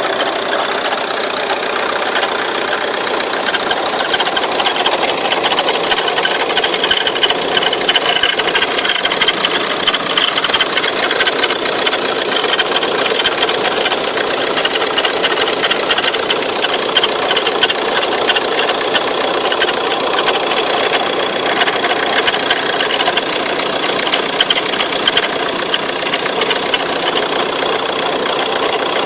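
Ford Tourneo Custom engine running steadily, with a fast, even rattling and rubbing noise over the engine sound. The owner puts this down to the drive belt.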